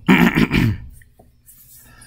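A man clearing his throat: one short, harsh rasp lasting under a second, right at the start.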